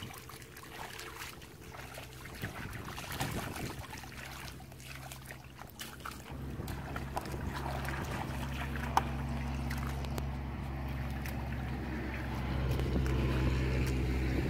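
Steady low hum of an unseen engine running, growing louder about halfway through, with wind on the microphone and scattered small clicks and wet splashes from hands working in shallow muddy water.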